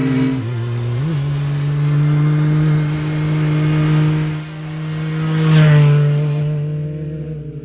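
Rally buggy engine running, its pitch dipping and climbing back about a second in, then swelling louder with a rising rev a little past halfway.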